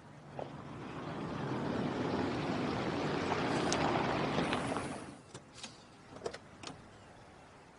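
A road vehicle passing by, its noise swelling over about four seconds and then dropping away, followed by a few sharp clicks.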